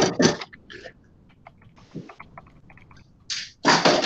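Used Disston hacksaws being gathered up and lifted off a workbench: their metal frames clatter together in a loud burst at the start and again near the end, with a run of small sharp clicks and knocks in between.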